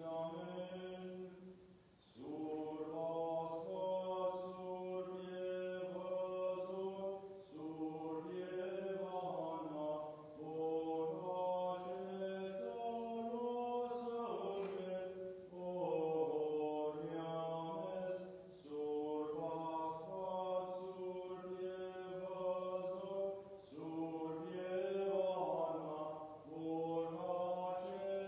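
Armenian Church liturgical chant, sung in long phrases about five seconds each with short breaths between, over a low note held steadily beneath the melody.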